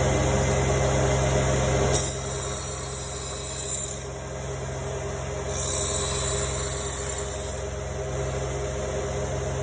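CNC saw-blade sidegrinder running its automatic cycle: a steady low motor hum, with a high-pitched hiss that comes and goes every few seconds as the machine indexes and grinds a tooth. The hum drops slightly about two seconds in.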